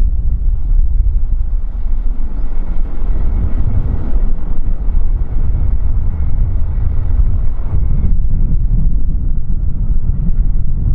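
Airliner jet engines running with a faint steady whine that stops about eight seconds in, under a heavy low rumble of strong wind buffeting the microphone.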